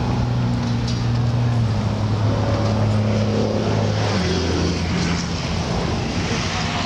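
An engine running steadily nearby, a low hum that drops in pitch in two steps, about two and four seconds in.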